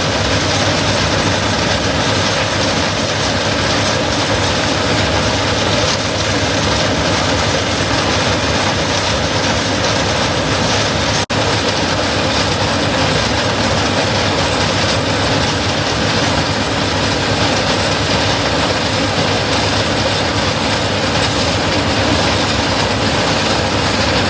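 Large diesel farm harvest machinery running steadily at close range, with a momentary break about eleven seconds in.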